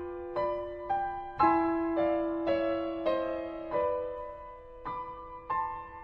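Background music: a slow, gentle piano melody, with single struck notes about every half second, each ringing on and fading.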